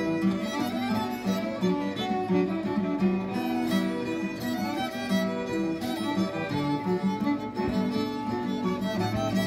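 Fiddles playing a fast fiddle tune together in unison, with an acoustic guitar strumming the rhythm underneath.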